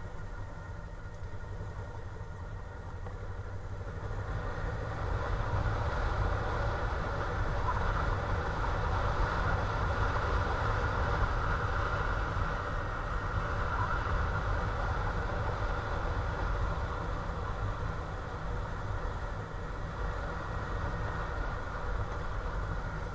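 Motorcycle engine running while riding, getting louder about five seconds in and easing off again near the end.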